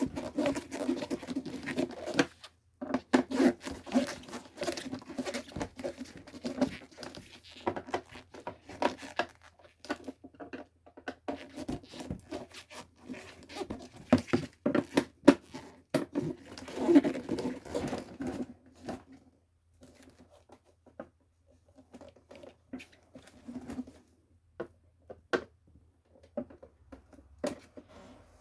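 Irregular clicks, taps and rustling of hands working on a ceramic electric heater's plastic housing and parts during disassembly. The clicks come thick for most of the first twenty seconds, then thin out to a few scattered taps.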